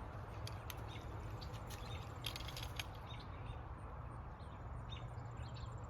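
Quiet outdoor background: a steady low rumble with a few faint, scattered ticks.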